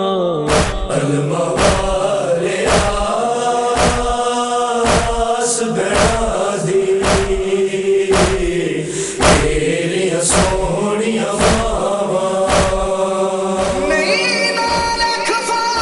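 Noha recitation: voices chanting a lament in a slow, drawn-out melody over steady matam chest-beating strokes, about one beat a second. Near the end a higher voice line comes in.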